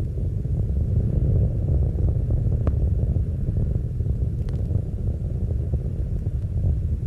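Space Shuttle Endeavour's two solid rocket boosters and three main engines firing during ascent, heard from the ground as a steady low rumble. The main engines have just been throttled back up to full after Max-Q.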